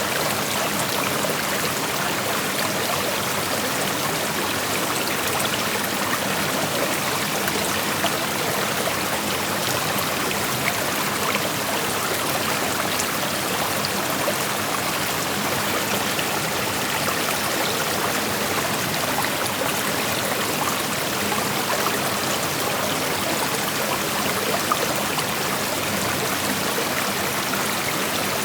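Shallow creek flowing over rocks: a steady rushing of water with small trickles and splashes mixed in.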